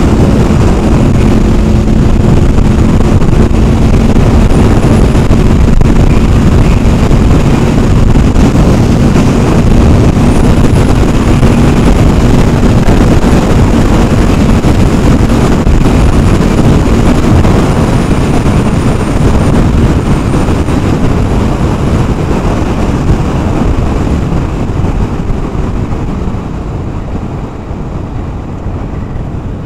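Honda VFR800 Interceptor's V4 engine running at speed under heavy wind rush on the microphone, with a steady engine note through most of the stretch. The noise eases somewhat near the end.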